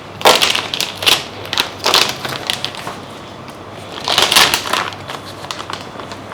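Packaging being handled and moved about, in several short noisy bursts; the loudest comes about four seconds in.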